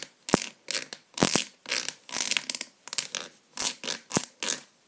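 Scissor tip scraping out the inside of a plastic mechanical-pencil barrel, a quick run of short rasping scrapes a couple of times a second, widening the bore because the peg fits too tightly.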